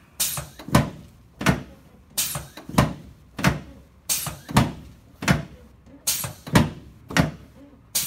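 Drop piece of a chiropractic drop table thumping down again and again, about one and a half sharp thumps a second, as thrusts are delivered to the sacroiliac joints.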